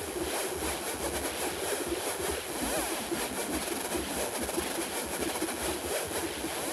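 Electronic score of dense rushing noise over a low rumble, with a few faint sweeping tones.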